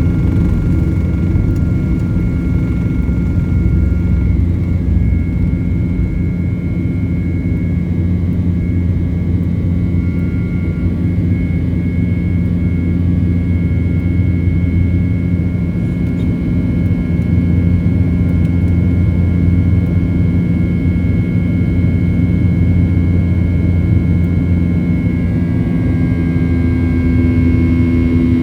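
Boeing 737 jet engines running at a steady high power, heard from inside the passenger cabin as a loud, even rumble with a thin high whine. Near the end a lower hum comes in.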